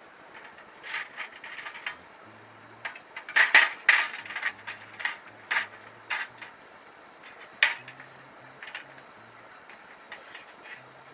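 Irregular clicks and clinks of hard, likely metal parts being handled, with the loudest cluster about three and a half to four seconds in and a sharp single click near eight seconds.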